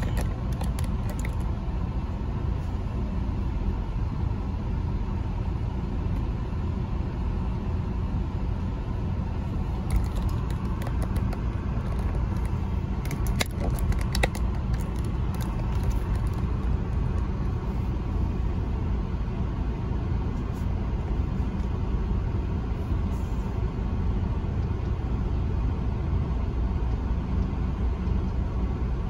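Steady low rumble of a semi truck's diesel engine and drivetrain, heard from inside the cab as it rolls slowly. A few light rattles come between about ten and fifteen seconds in.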